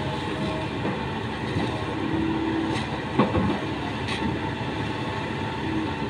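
Kobelco SK200 hydraulic excavator's diesel engine running steadily while the machine works, its arm reaching out to smooth the mud bank of a canal with the bucket. A few light knocks come through over the drone.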